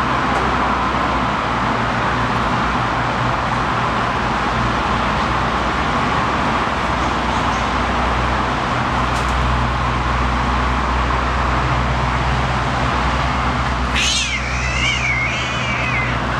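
A cat yowls once, a drawn-out, wavering cry of about two seconds near the end, the hostile call of a cat meeting another cat in the tree. Under it runs a steady hum of road traffic.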